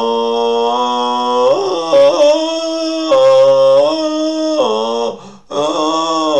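A man's voice chanting long held vowel tones in a mantra-like way. Each note is sustained for one to two seconds before stepping to a new pitch, with a short breath about five seconds in.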